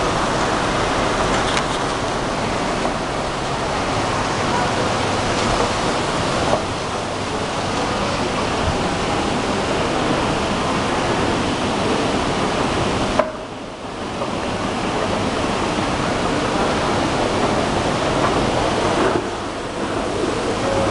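Steady background noise of a large shopping-centre hall: a constant hiss-like wash of sound, with a brief drop and a click about two thirds of the way through.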